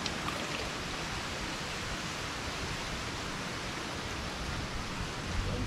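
Steady, even rushing noise of a small stream's flowing water.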